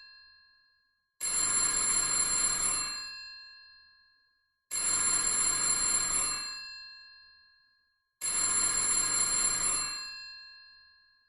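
Vintage telephone bell ringing: three rings about three and a half seconds apart, each about two seconds long, with the bell tones fading out after each one. The end of an earlier ring dies away at the start.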